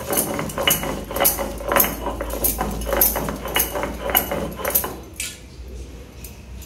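Stone roller scraping back and forth over a stone grinding slab (sil), grinding spice paste by hand in strokes of about two a second; the strokes stop about five seconds in.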